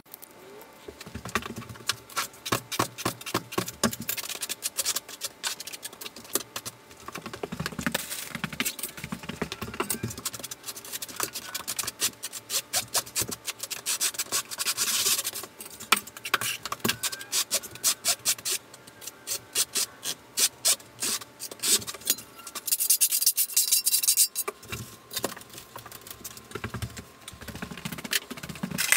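Notched trowel scraping thinset mortar across Schluter Ditra membrane, sped up into a rapid run of scrapes and clicks.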